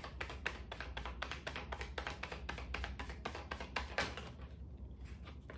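A tarot deck being shuffled by hand: a quick run of soft card taps and flicks that thins out near the end.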